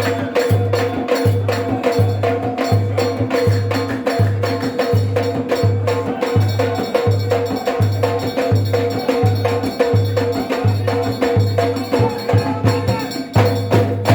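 Ahwash folk music. Low frame-drum strokes keep an even pulse of about one and a half beats a second, with quick sharp percussive strikes between them over steady held tones.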